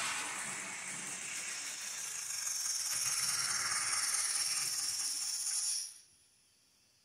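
Factory DCC sound decoder of a Mantua 0-6-0 Pennsylvania saddle tank switcher model playing a steam-locomotive hiss with a rattle through its small speaker. The hiss cuts off suddenly about six seconds in.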